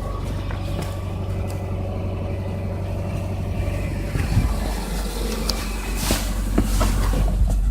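2005 Subaru Legacy's 2.0-litre flat-four engine running with a knocking noise and a few sharp clicks, getting a little louder near the end; the owner cannot tell whether it is worn bearing shells or piston slap.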